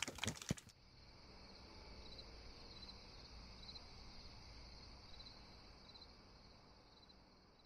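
A few last hand claps, then crickets chirping: a steady high trill with a faint chirp repeating about once a second.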